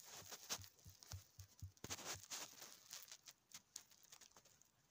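Faint, irregular light taps and clicks of fingers pressing and patting a Play-Doh figure against a wooden table, thinning out near the end.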